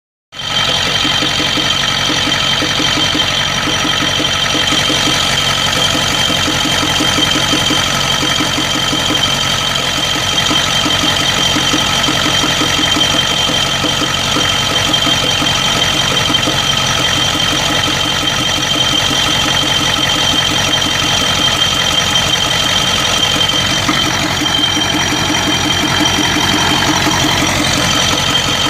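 Ford 7.3 IDI V8 diesel idling with an even, rapid knock, which the owner likens to injector knock, and a steady high whine above the engine note. The engine suffers random misfire and blowby at idle, later traced to broken second piston rings on two pistons and a bad valve guide.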